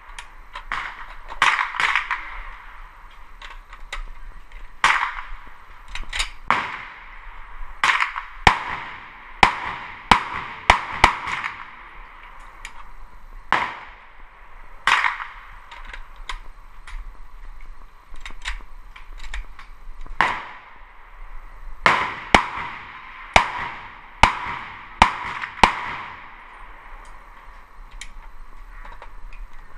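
A VZ-58 Sporter 7.62x39mm short-barrel rifle firing semi-automatic shots at an uneven pace, about twenty in all, sometimes two in quick succession. Each shot is a sharp crack with a short echo, heard through a GoPro camera's microphone, so it sounds thin with little bass.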